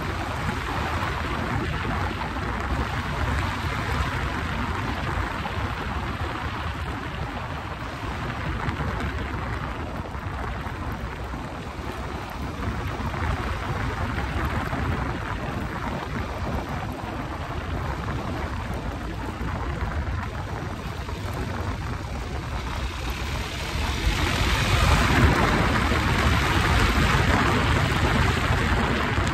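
Motorcycle riding at road speed: steady wind rush over the handlebar-mounted microphone mixed with engine and tyre noise, growing louder near the end.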